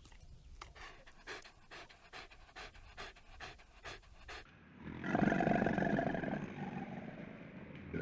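An animal panting in quick, even breaths, about two to three a second. Then comes a loud, drawn-out animal call lasting about three seconds, slowly falling in pitch as it fades.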